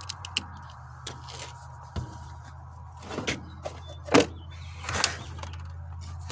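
Handling of a Stihl chainsaw fitted with a hose compression gauge: a few light clicks, then three louder swishing knocks, the middle one the loudest, over a steady low hum.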